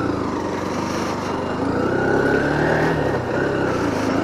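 Motorcycle engine running on the move, its note steady and edging up slightly, with road noise.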